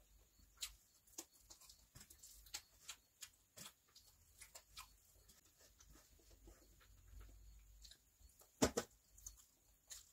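Close-miked eating sounds: short wet smacks and clicks of chewing and of fingers mixing biryani rice on a steel plate, a few a second, with a louder double smack near the end.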